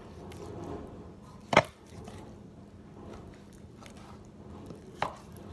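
Kitchen knife cutting raw bone-in pork shoulder, with two sharp knocks: a loud one about a second and a half in and a smaller one near the end.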